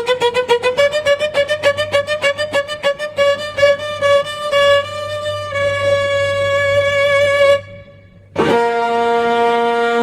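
Horror music on a bowed string instrument: fast repeated notes for the first few seconds, then long held notes. About three-quarters of the way through it breaks off to near silence for under a second before a held note comes back in.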